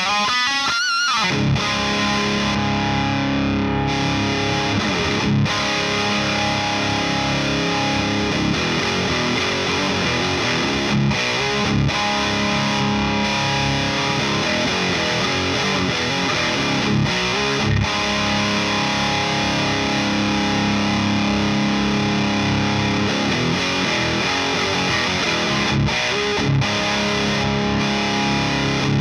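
PRS SE 245 electric guitar played through an overdrive pedal into a Rivera Knucklehead Reverb amp on its high-gain channel, giving distorted riffs and chords. There is a brief break about a second in, then the playing runs on without a stop.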